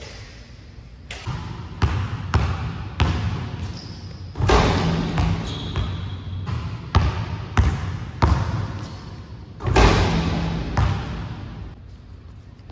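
Basketball bouncing on an indoor gym court, about a dozen bounces at uneven spacing, each echoing in the large hall. Two louder hits, about four and ten seconds in, ring on longer than the rest.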